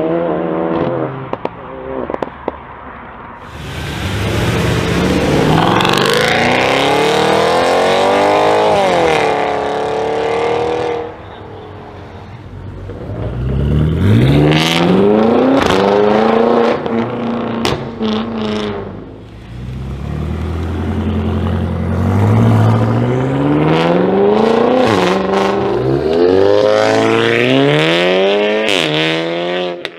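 Performance car engines accelerating hard one after another, each revving up in pitch and breaking off at gear changes. A BMW X5 M's twin-turbo V8 pulls away about halfway through, and a Volkswagen Golf R revs near the end.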